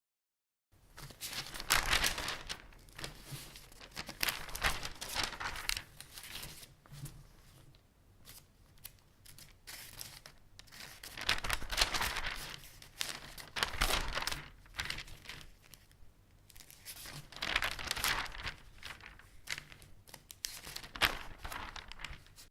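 Newspaper pages rustling and crinkling as they are handled and turned, in three louder flurries of page-turning with quieter handling in between.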